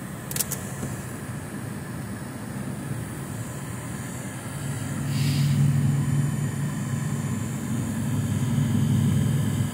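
Low, steady drone of a car's engine heard from inside the cabin, growing louder about halfway through, with a short click near the start and a brief hiss around the middle.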